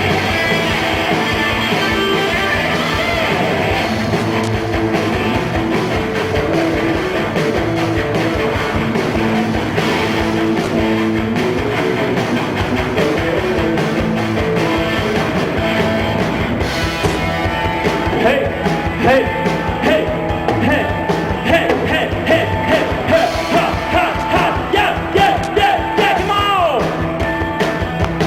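Live rock band playing an instrumental passage with electric guitar, the beat growing punchier about halfway through.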